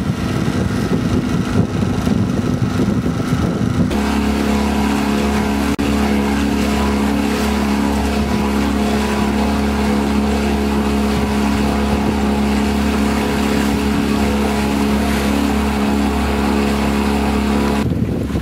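Boat's outboard motor running at one steady speed, a constant hum of several even tones. It begins abruptly about four seconds in, after a stretch of loud rushing noise from wind and water, and stops abruptly just before the end.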